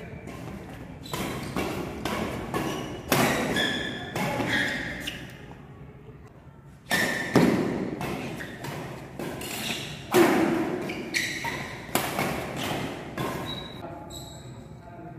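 Badminton rackets striking a shuttlecock in a quick doubles rally, sharp irregular hits several a second with a brief lull near the middle. The hits echo in a large hall, along with players' footsteps on the floor.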